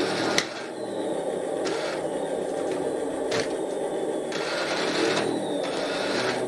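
Small electric motors and gearboxes of a radio-controlled T-34 model tank running, whirring in spells that start and stop, with a sharp click about half a second in.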